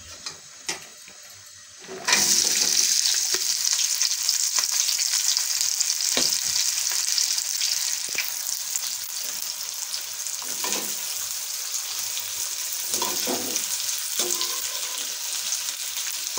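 Sliced red onions tipped into hot oil in a kadhai: a sudden loud sizzle starts about two seconds in and carries on as a steady frying hiss. A few scrapes as the onions are stirred.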